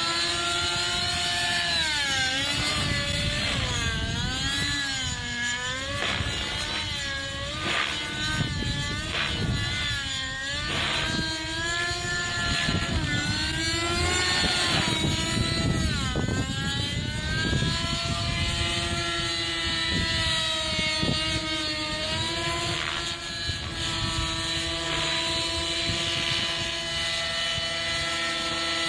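Nitro engine and rotors of a TSA Infusion 600N Pro RC helicopter in flight, the engine pitch swinging up and down over and over in the first half as it swoops and manoeuvres, then holding steadier near the end.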